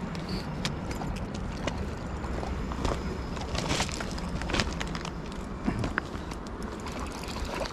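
Footsteps crunching over loose stones and gravel, with irregular sharp clicks over a steady low rumble.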